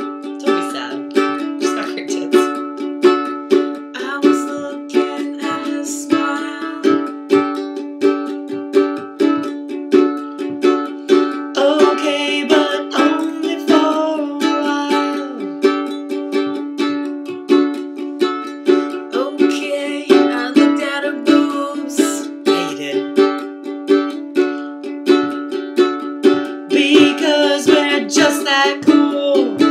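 Ukulele strummed in a steady rhythm, with a voice singing briefly now and then over it.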